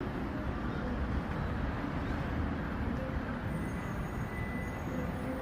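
City street traffic noise: a steady low rumble of passing cars and buses.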